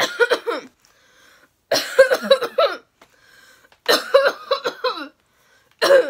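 A young woman's coughing fit that won't stop: three runs of several quick coughs about two seconds apart, and a fourth starting near the end.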